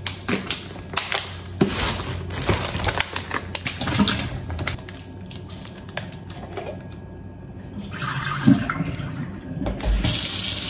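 Liquid poured out of plastic water bottles into a kitchen sink, with clicks and knocks of the bottles being handled. It goes quieter for a few seconds in the middle while a jar is opened, then liquid pours again with a thump, and the jar of pickle juice is emptied near the end.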